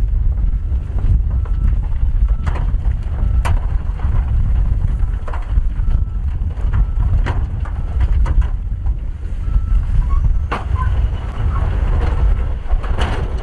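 Dump truck tipping its load: a low engine rumble under rocks and dirt sliding out of the raised bed, with scattered knocks and clatters as stones hit the pile. A faint short high beep recurs at intervals.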